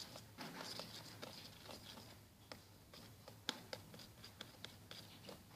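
Faint, irregular sticky clicks and smacks of thick homemade slime being handled and squeezed by hand.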